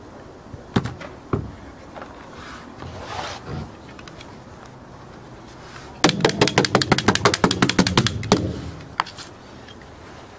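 Rapid hammer blows nailing thin wooden roof shingles, a quick run of about ten taps a second lasting a little over two seconds, after two single knocks near the start.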